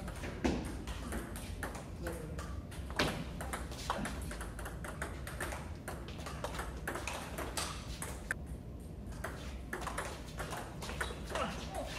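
Table tennis rally: the ball clicking sharply off the players' bats and the table top again and again, at an uneven pace, over a steady low hum.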